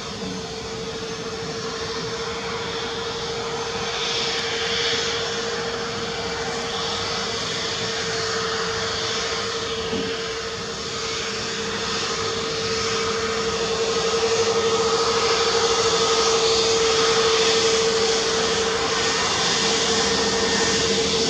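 Airbus A320neo's CFM LEAP-1A turbofan engines running at steady power as the airliner moves along the runway, one steady hum over a rushing noise. It grows louder about two thirds of the way through as the aircraft comes closer.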